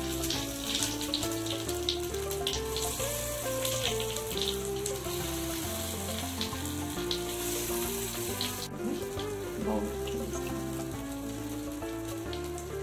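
Moong dal batter sizzling and crackling in the hot cups of an appe (paniyaram) pan, with backing music playing a slow melody over bass notes. The sizzle drops away abruptly a little under nine seconds in.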